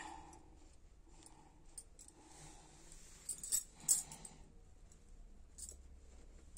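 Faint handling sounds: rustling with a few small sharp clicks, the loudest about three and a half to four seconds in.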